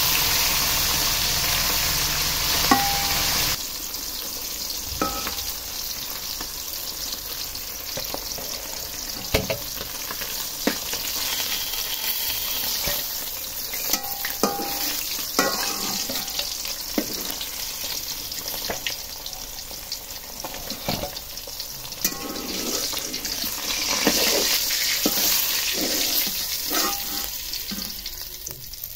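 Fish pieces sizzling as they fry in hot oil in an aluminium karai, with a metal spatula scraping and clicking against the pan as the pieces are turned and lifted out. The sizzle drops a little about three and a half seconds in and swells again near the end.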